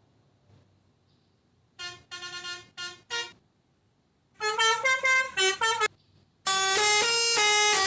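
Melodica (pianika) playing the Basuri telolet bus-horn tune in reedy, horn-like notes that step in pitch. A short phrase comes about two seconds in, a louder one just before halfway, and a loud unbroken run of notes from about six and a half seconds on.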